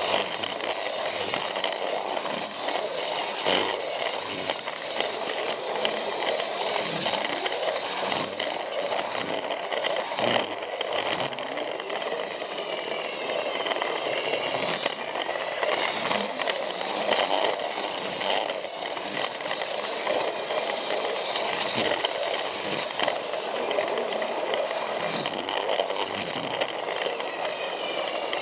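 Plarail toy train running on plastic track: its small battery motor and gearbox whir steadily, with irregular clicks and clatter as the plastic wheels pass over the rail joints.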